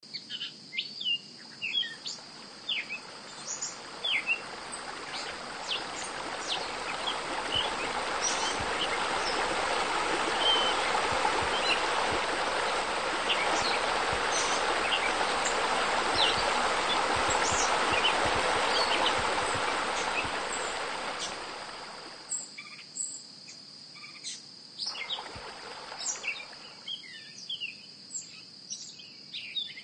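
Outdoor nature ambience: scattered bird chirps over a steady high insect drone, with a rushing noise swelling up for much of the time and fading out about two-thirds of the way through.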